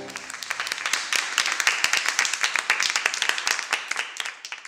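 Audience applauding with many separate hand claps, fading away near the end.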